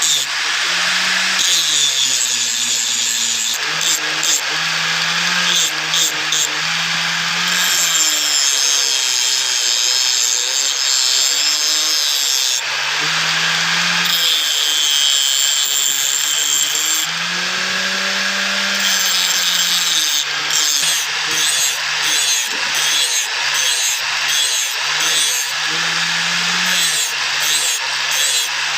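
Steel being worked with a hand file, rasping back and forth in even strokes, about one and a half a second in the latter part, with a low steady hum underneath.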